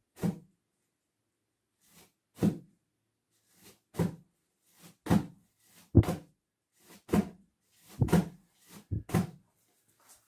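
A home-made smoke ring blaster being punched over and over: the flexible bag stretched over the end of an empty plastic barrel gives a series of dull thumps, the louder ones about one a second with fainter ones between. Each punch pushes a smoke ring out of the hole in the barrel's other end.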